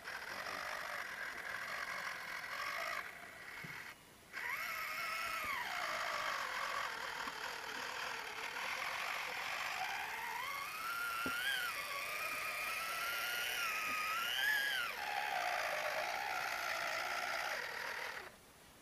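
Six-wheel RC model truck's drive motor and gears whining as it crawls over rocks, the pitch rising and falling with the throttle. The whine breaks off briefly a few seconds in and stops just before the end.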